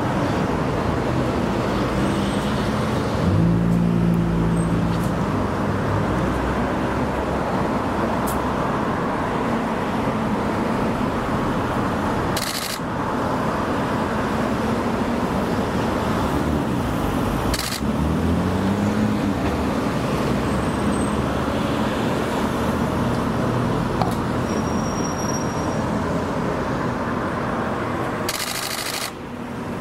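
Steady street traffic noise from passing cars. One vehicle's engine comes up a few seconds in, and another rises in pitch as it accelerates about two-thirds of the way through.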